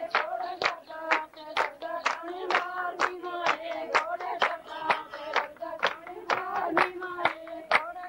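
Women singing Punjabi boliyan to a steady beat of handclaps, about two claps a second, as in a giddha folk dance.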